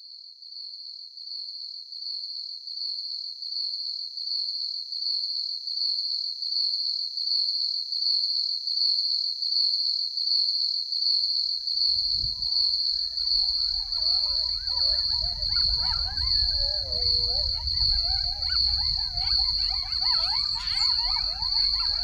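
Crickets chirping in a steady, pulsing high trill that grows louder over the first few seconds. About halfway through, a low wind rumble and a chorus of wavering animal calls join in.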